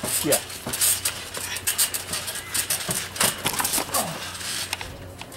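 Trampoline springs and frame creaking and squeaking, with repeated sharp clicks and thumps as wrestlers bounce and land on the mat.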